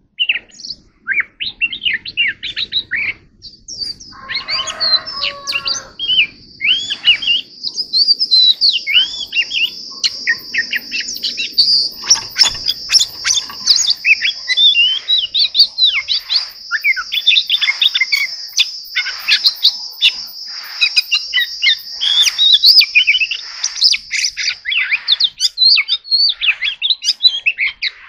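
Oriental magpie-robin singing a long, varied song of quick whistled notes, slurs and trills with hardly a pause. A steady high buzz runs under the song through much of the middle.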